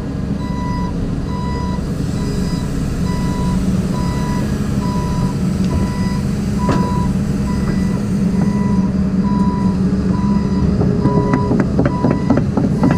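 A track-hoe excavator's travel/backup alarm beeping in a steady repeating rhythm over its diesel engine running. Near the end there are several sharp clanks and rattles.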